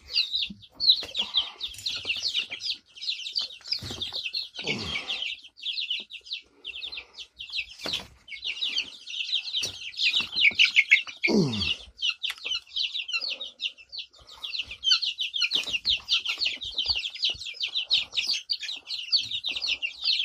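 Young chicks peeping rapidly and constantly, many high-pitched peeps overlapping. A couple of lower falling sounds come about four and eleven seconds in.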